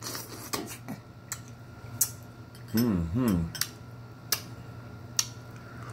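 Eating sounds close to the microphone: scattered sharp clicks and smacks, with a short two-part hummed "mm-mm" about three seconds in.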